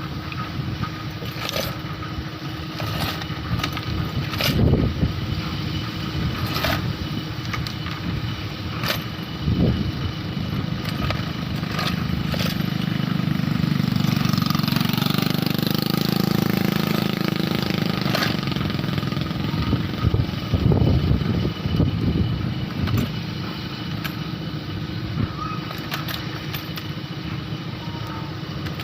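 A motor running steadily, with scattered sharp clicks and knocks. A louder engine sound swells up near the middle and fades away again.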